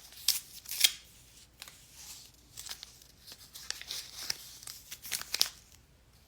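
A toy blind pack's plastic wrapping being handled and opened, crinkling and tearing in quick irregular crackles and snips that stop about five and a half seconds in.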